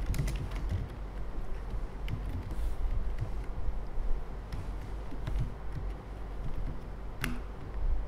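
Laptop keyboard typing in scattered, irregular key clicks, with one sharper keystroke near the end, over a steady low hum.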